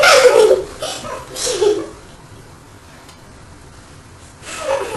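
Laughter and wordless vocal sounds from young women, their voices edited to a high chipmunk pitch, dying away after about two seconds; a brief laugh or vocal sound comes again near the end.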